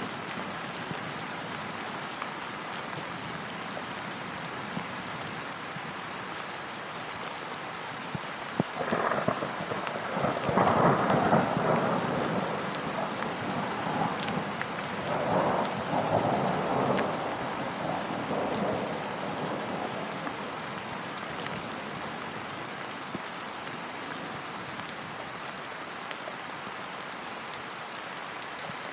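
Steady rain falling, with a long roll of thunder that starts about nine seconds in, peaks soon after and dies away over about ten seconds.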